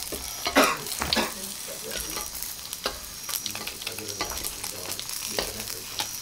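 Small seluang fish frying in hot oil in a wok, sizzling, while a metal spatula scrapes and clinks against the wok as the crisp-fried fish are lifted out, with the loudest scrapes about a second in.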